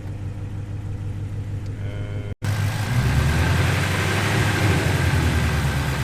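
Ford Shelby GT350's flat-plane-crank 5.2-litre V8 idling steadily through newly installed long-tube headers and a full exhaust. About two and a half seconds in, the sound drops out for an instant and comes back louder.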